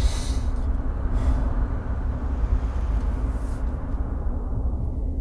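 Steady low rumble of a car's engine and tyres on the road, heard from inside the cabin while driving, with a few brief hisses in the first seconds.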